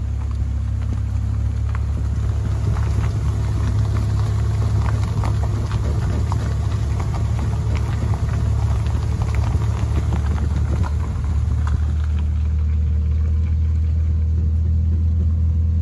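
Vehicle driving at road speed, heard from inside the cab: a steady low engine and road drone, with scattered small ticks and crackles from the road surface through the middle. The drone settles into a slightly different note about twelve seconds in.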